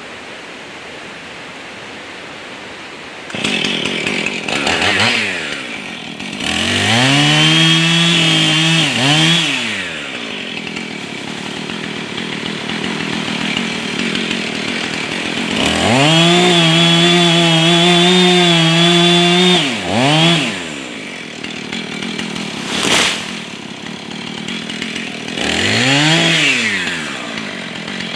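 Husqvarna 445 two-stroke chainsaw, fitted with a new bar, cutting trees. It is revved to full throttle for two long cuts of about three seconds each, with short throttle blips before and after that drop back toward idle. There is a single sharp crack about two-thirds of the way through.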